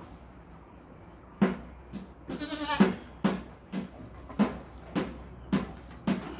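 Assam Hill Goat doe in labour giving one wavering bleat about two and a half seconds in, among a run of short sharp sounds roughly two a second.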